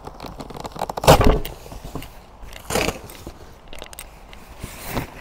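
Cardboard box being torn and pulled open and its polystyrene packing shifted, in three short scraping, crackling bursts, the loudest about a second in, with small knocks and rustles between.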